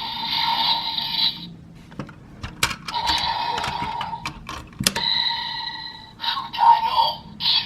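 DX Dark Seiza Blaster toy playing electronic sound effects and voice lines in several stretches, some beeping like an alarm. Short sharp clicks between them, about two seconds and again about four and a half seconds in, come from the toy being worked as a Kyutama is loaded.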